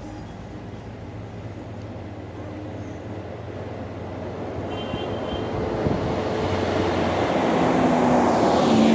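Road traffic: a motor vehicle's engine and tyres growing steadily louder as it approaches, then rushing past close by near the end.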